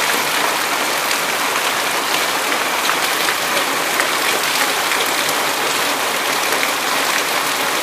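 Heavy rain falling steadily on a paved street, an even hiss of drops.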